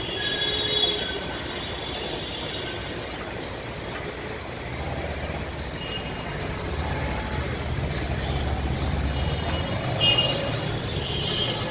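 City street traffic: a steady wash of vehicle engine and road noise, with a low engine rumble that swells from about halfway and eases near the end.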